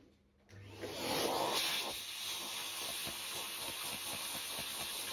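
Small vacuum cleaner starting about half a second in, then a steady suction hiss with fine crackling as its nozzle, pressed to an AirPod's speaker grille, draws out window-cleaner liquid and loosened dirt.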